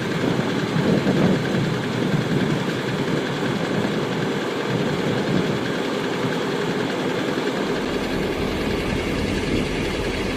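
Rice combine harvester's engine and machinery running steadily, with a deeper rumble coming in about eight seconds in.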